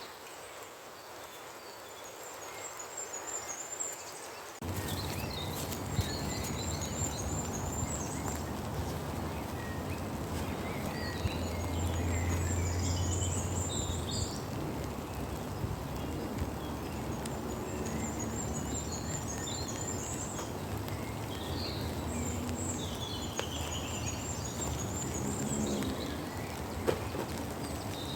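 Songbirds singing, repeating short high trilling phrases, over a steady hiss of heavy rain that comes in abruptly about five seconds in.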